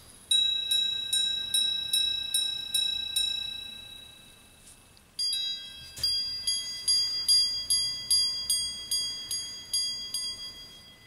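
Minute repeater watch chiming: its hammers strike the gongs in a regular run of ringing notes, about three a second, that die away. After a short pause, a second run of strikes begins on different notes.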